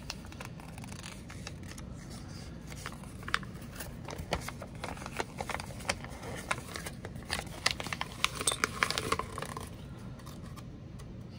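Thin plastic LEGO polybag being opened and handled: crinkling with scattered sharp clicks and ticks, busiest from about seven to ten seconds in.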